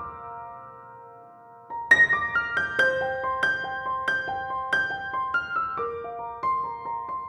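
Background piano music: a held chord fades away, then a melody of struck notes starts again about two seconds in.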